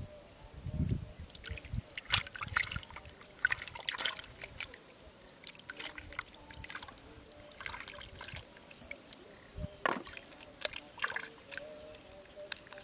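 Hands digging and squelching through wet riverbed mud, with irregular splashes, trickling water and sharp wet clicks as freshwater clams are pulled out of the mud.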